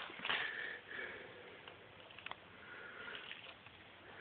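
Faint sniffing and breathing by a person, with a single small click a little past the middle.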